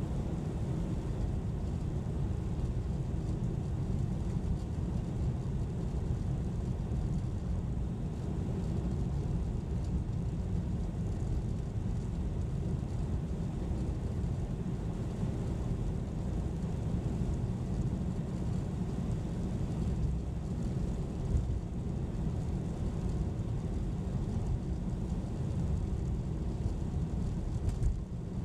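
A car driving: a steady low rumble of engine and tyre noise from the road.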